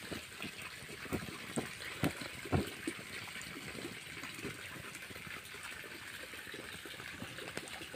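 Dry leaves and embers crackling and hissing in a small open fire, with a few sharper snaps in the first three seconds.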